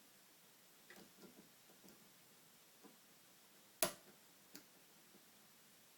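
Pin-tumbler lock with spool and serrated pins being picked with a hook pick and tension wrench: faint scattered clicks of the pick and pins, with one sharper, louder click about four seconds in.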